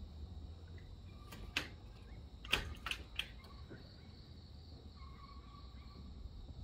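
A few sharp snaps and knocks as a long pole hooks and pulls at tree branches, the loudest about two and a half seconds in, over a steady low rumble and a faint steady high whine.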